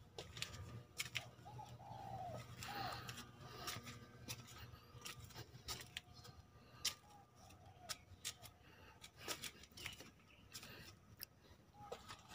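Dove cooing faintly in short repeated phrases, over scattered small clicks and rustles.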